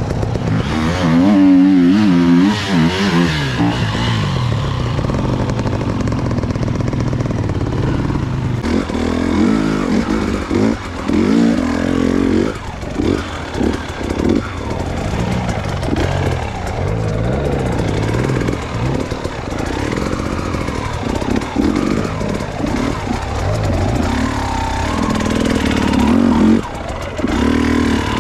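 Enduro dirt bike engine revving, its pitch swinging up and down in the first few seconds, then a run of quick throttle blips with short on-off breaks.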